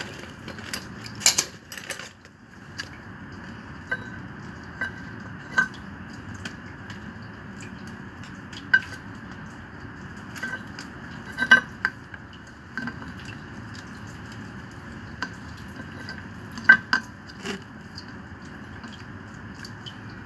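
Irregular sharp metallic clicks and clinks of a screwdriver and wire being worked at the terminal box of an electric peripheral water pump motor, a few seconds apart over a steady faint hiss.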